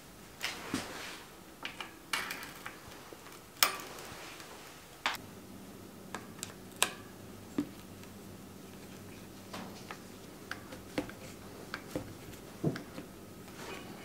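Irregular metallic clicks, taps and small knocks of hand tools, including a hex key, working on a bicycle's front brake arms.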